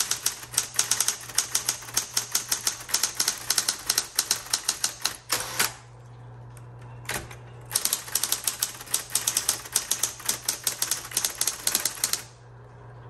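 Smith Corona Coronet Automatic 12 electric typewriter being typed on fast: a quick, even run of type-bar strikes over the steady hum of its running motor. The typing pauses for about two seconds midway, broken by a single stroke, then picks up again.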